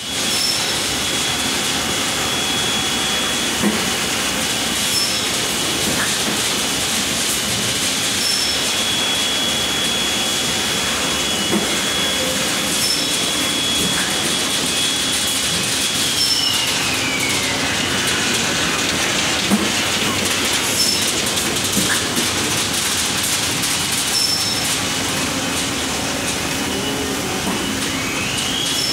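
Husky injection moulding machine making plastic preforms, running with a steady noisy machine hum and hiss. A high whine holds steady, glides down in pitch about halfway through and climbs back near the end, with a few light knocks.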